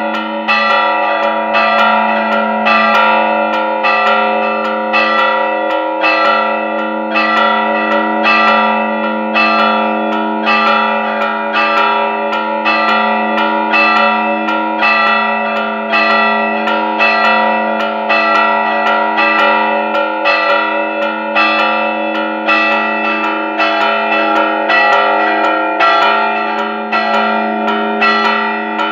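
Church bells rung in a festive repique: a steady rhythm of struck strokes, a little under two a second, over the lingering hum of the bells.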